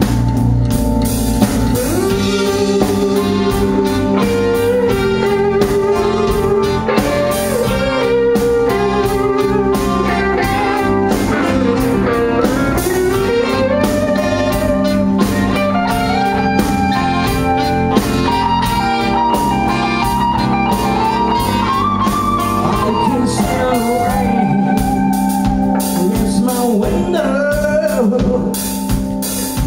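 Live band with drum kit, electric bass, keyboard and electric guitar playing a bluesy soul-rock number, with a lead melody line that slides and bends in pitch over a steady backing.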